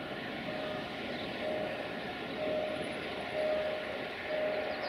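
Diesel locomotive approaching with a steady running noise, over which a single-pitched beep sounds evenly about once a second.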